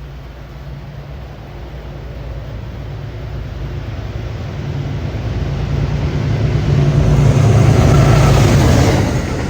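Amtrak passenger train led by GE P32AC-DM locomotives approaching, the low steady hum of the diesel engines growing louder. It peaks near the end and drops off suddenly as the locomotives pass.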